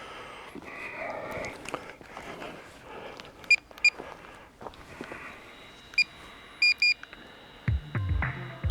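Short electronic beeps, some single and some in quick pairs, over faint background noise, with a thin steady tone from about halfway through.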